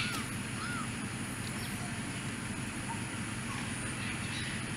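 Outdoor background of steady low rumbling noise, with a few short bird chirps, two of them in the first second.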